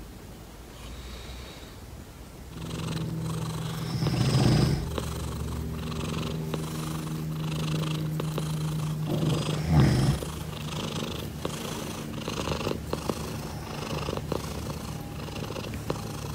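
Domestic cat purring, a steady low rumble that pulses about twice a second with its breathing. It grows louder about two and a half seconds in, with two louder swells around four and ten seconds in.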